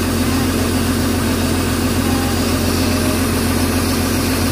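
Hyundai excavator's diesel engine running steadily at a constant pitch, a loud, even hum.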